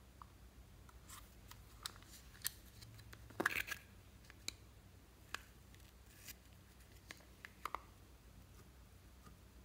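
Plastic cushion makeup compact being handled and pulled apart: scattered sharp plastic clicks and taps, with a louder cluster of clicks about three and a half seconds in.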